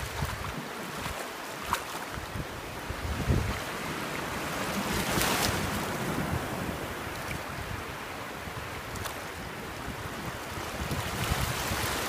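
Shallow surf washing in and out over sand at the water's edge, with wind buffeting the microphone. A wash swells up about five seconds in and again near the end.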